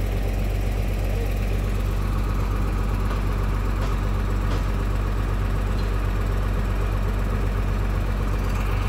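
Mercedes-Benz OH1521 bus's rear-mounted intercooled diesel engine idling steadily with a deep, even note, sounding fierce.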